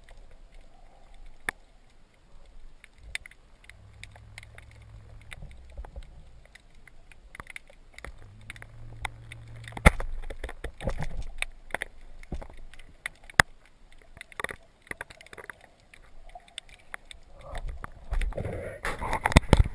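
Underwater ambience heard through a camera's waterproof housing: scattered sharp clicks and crackles over a low rumble of moving water. The rumble grows louder and busier near the end as the diver handles the speargun close to the camera.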